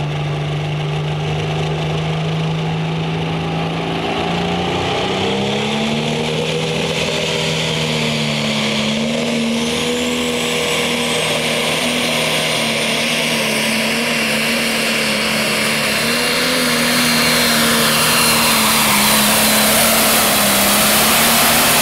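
John Deere super/pro stock pulling tractor's turbocharged diesel engine at full power pulling the sled. It revs up from a steady idle about four seconds in, then holds high revs with small surges while a high whine rises over it, growing louder near the end.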